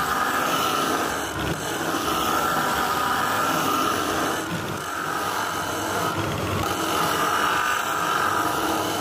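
Angle grinder fitted with a 60-grit abrasive cup wheel running against the edge of a marble slab, grinding a bevel. A steady whine that rises and falls a little as the wheel bears on the stone.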